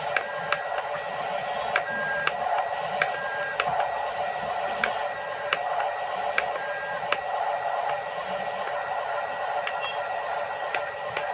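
A small electric motor and gears whirring steadily, with sharp clicks about once or twice a second.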